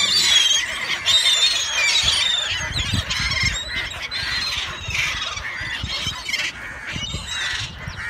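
A flock of gulls calling: many overlapping high squealing calls with gliding pitch, busiest in the first few seconds and thinning somewhat after.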